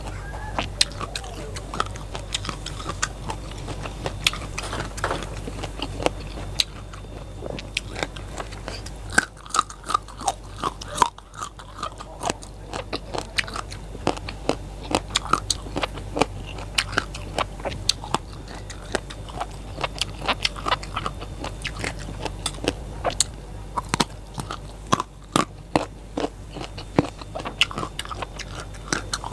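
Close-miked biting and chewing of crisp raw vegetables, with many irregular sharp crunches.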